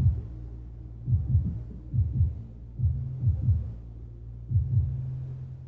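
Bass-heavy music thumping through a wall from a neighbour's apartment. Only the deep end comes through: low kick-drum thuds that drop in pitch, several close together, and long held bass notes between them.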